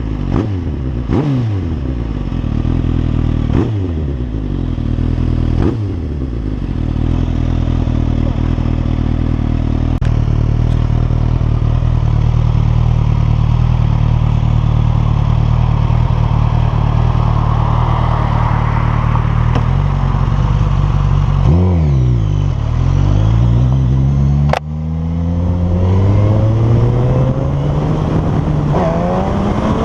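Suzuki GSX-S1000's inline-four engine through its stock exhaust: a few quick throttle blips, then revs held high and steady for a long stretch. Near the end the revs drop, then climb twice, with a sharp click and a brief dip in between.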